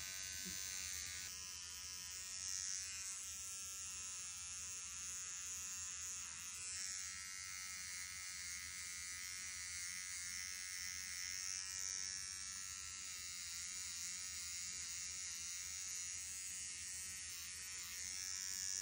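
Cordless electric pet clippers running steadily with a motor buzz while trimming the fur tufts between a cat's paw pads. The tone wavers slightly now and then as the blade works through the fur.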